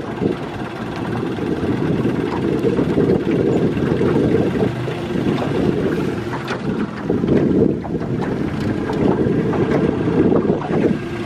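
Wind buffeting the microphone on a moving open aluminium boat, over the steady running of its outboard motor.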